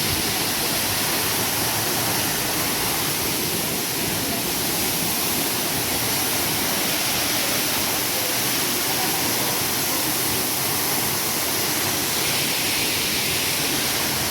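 Toraille Waterfall heard up close: a loud, steady rush of falling water.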